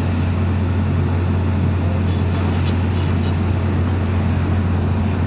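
Drilling rig's engine running steadily, a constant deep drone with no change in speed.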